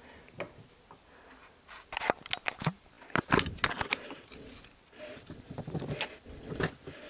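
Metal clinks, taps and scrapes of a hand tool and an aluminium oil pump housing being handled on a metal workbench, in scattered bursts, with the busiest clatter from about two to four seconds in.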